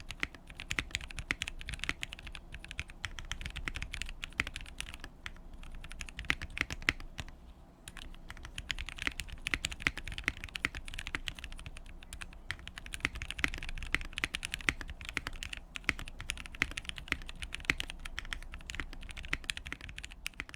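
Typing on a KBD67 Lite mechanical keyboard with lubed and filmed Gateron Ink V2 linear switches, a silicone dampener and a tempest tape mod: fast, continuous keystroke clacks, with a short lull about seven and a half seconds in.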